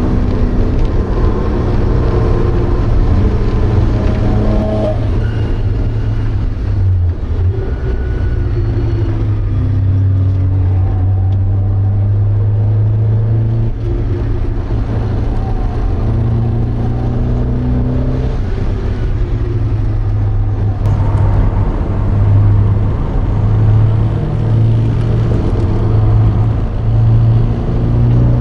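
Porsche 924's 2.0-litre four-cylinder engine heard from inside the car at race pace, its revs repeatedly rising and falling with gear changes and corners.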